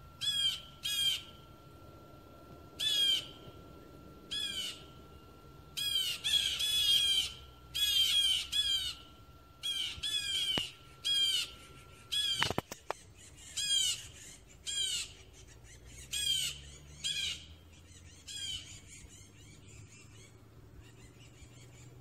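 Blue jay giving repeated harsh jay calls, singly and in quick runs of two or three, stopping a few seconds before the end. A single sharp click about halfway through.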